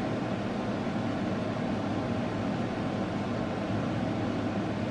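Steady low background hum with a faint hiss: room tone.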